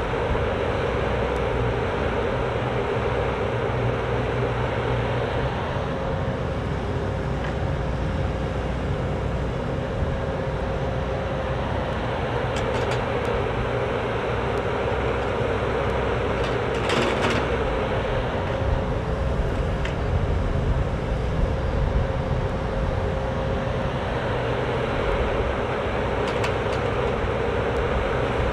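Cat 304D mini excavator working: its diesel engine runs steadily under a held tone as the boom and bucket move dirt, with a short clatter about seventeen seconds in.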